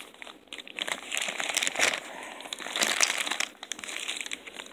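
Plastic wrapping crinkling and rustling in uneven bursts as it is handled and pulled open by hand to unwrap a book.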